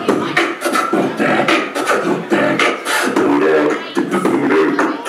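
Live beatboxing into a cupped handheld microphone: a fast, even beat of sharp mouth-made drum hits, with short hummed pitched notes woven between them.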